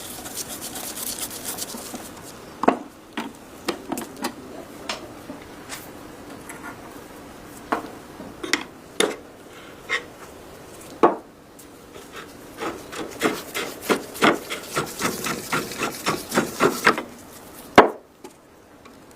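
Hand restoration work on a rusty K98 rifle: rubbing and scraping on its parts, broken by sharp knocks. Past the middle comes a quick run of short rubbing strokes, about three a second, then one loud knock near the end.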